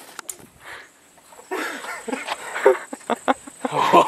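A man's wordless vocal reactions, short exclamations and groans, to the kick of a 12-gauge shotgun just fired. A few sharp clicks come near the end.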